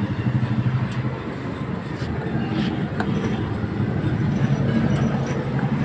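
Steady low mechanical rumble, like an engine running nearby, with a few faint light clicks of hand tools on a car AC compressor's clutch plate and pulley.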